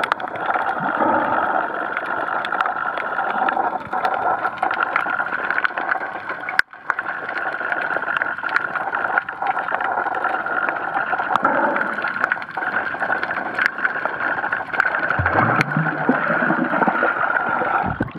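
Muffled, steady water noise picked up by a camera held underwater, with scattered small clicks and a brief drop-out about a third of the way in.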